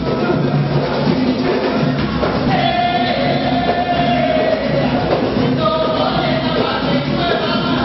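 Live Dominican folk music: a woman singing into a microphone over a steady hand-drum rhythm, with other voices joining in. She holds one long note about three seconds in.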